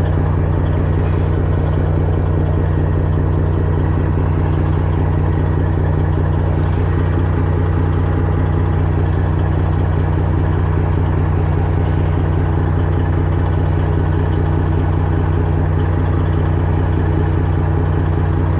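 Semi truck's diesel engine idling, a steady low hum that holds an even pitch throughout.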